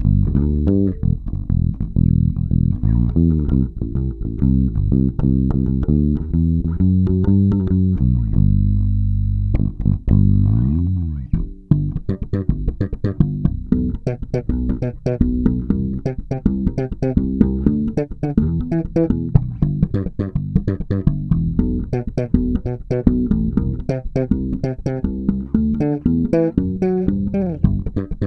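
Warwick Rockbass Streamer Standard five-string electric bass, played fingerstyle through an amp with both pickups blended. It plays a running bass line of plucked notes, with a long held note that slides in pitch about ten seconds in, followed by quicker, brighter notes.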